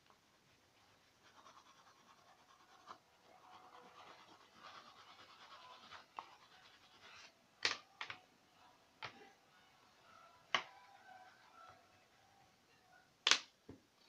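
Wax crayon rubbing on paper in soft scratchy strokes, followed by a few sharp clicks, the loudest near the end.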